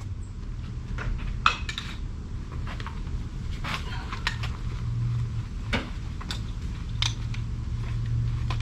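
Maple boards being handled and set down: scattered knocks and clacks of wood on wood, about half a dozen, over a steady low hum.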